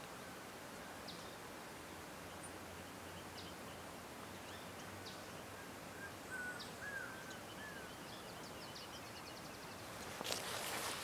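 Faint ambience of small birds calling against a steady hiss: scattered sharp chips, then a short run of rising-and-falling whistled notes about six seconds in, followed by a quick series of ticks. A brief burst of rustling noise about ten seconds in.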